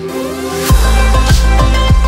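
Electronic background music: a build-up that drops, less than a second in, into a heavy bass line with a deep kick drum beating steadily.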